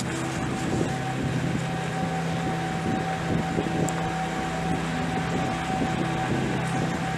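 Background music of sustained, held chords with a steady high note over them.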